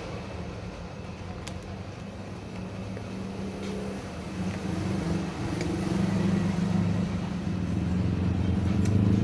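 Small Jiamei ceiling fan running with a steady low hum, growing louder about halfway through, with a few faint ticks.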